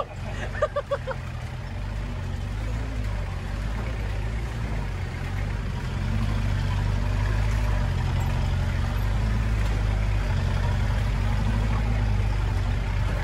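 Land Rover 4x4's engine running steadily while driving an off-road trail, getting louder about six seconds in.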